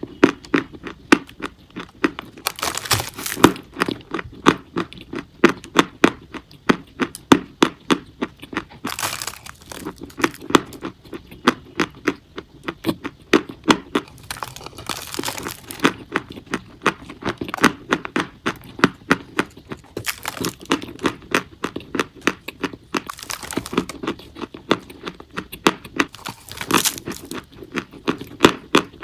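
Chalk being bitten and chewed close to the microphone: a steady run of sharp crunches and cracks, several a second, broken by a few longer crumbling stretches.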